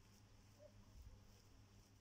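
Near silence: faint room tone with a low hum and a few faint ticks.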